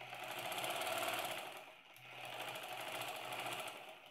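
Sewing machine stitching a seam through fabric at a steady fast rate. It eases off briefly about halfway, picks up again, and stops near the end.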